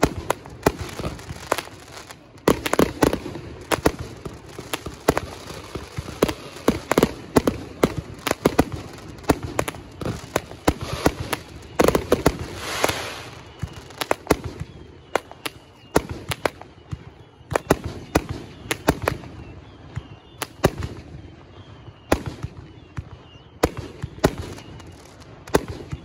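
Link Triad LT-K5502D 16-shot Nite Parachute firework cake going off: sharp launch thumps and bursting reports come one after another at uneven spacing. The shots are densest in the first half, with a longer rushing hiss about twelve seconds in, then come as sparser, separate bangs.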